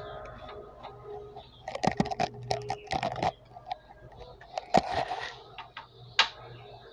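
Handling noise from work inside a sheet-metal power-supply case: scattered clicks, taps and short rustles as a potentiometer and its wires are moved into place, in clusters around two and three seconds in, with a sharper click just after six seconds.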